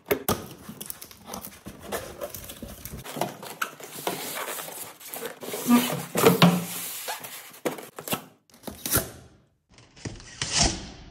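Cardboard box being opened and a polystyrene foam packing shell slid out of it: irregular scraping, rustling and knocks of cardboard flaps and foam, with a short burst of foam rubbing near the end.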